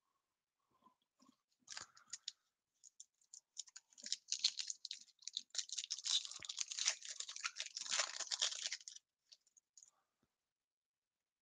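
Foil wrapper of a Topps trading-card pack being torn open and crinkled by hand: a crackling rustle from about two seconds in until about nine seconds, busiest in the middle.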